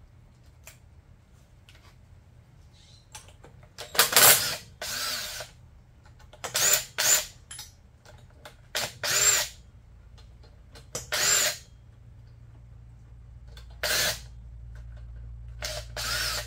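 Cordless power tool spinning out a golf cart engine's cylinder head bolts in about eight short bursts, each spinning up and winding down. The bolts come out easily because they have lost their torque over time.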